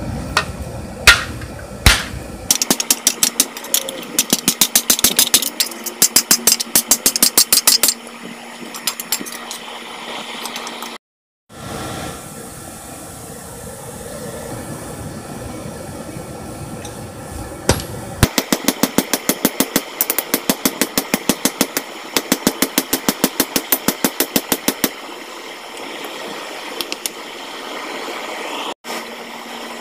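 Hand hammer striking metal in quick, regular bouts of about four to five blows a second, with a couple of heavier single blows at the start.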